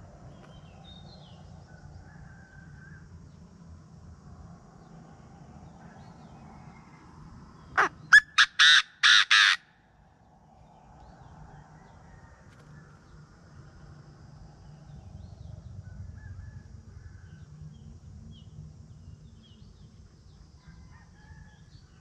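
Caged Chinese francolin giving its loud, harsh call once, about eight seconds in: a quick series of about five notes.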